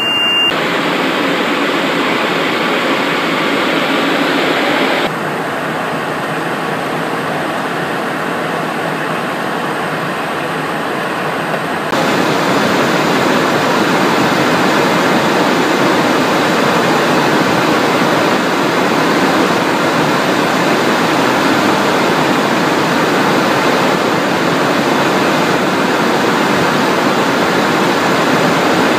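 Steady rush of airflow and turbofan engine noise heard inside the cockpit of a Cessna Citation Encore in flight. The noise drops slightly about five seconds in and comes back louder about twelve seconds in.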